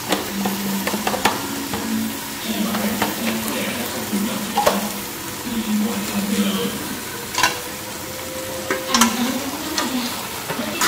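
Grass carp, banana flower and bamboo shoots frying in a wok under an upturned aluminium basin: steady sizzling with scattered sharp crackles and pops.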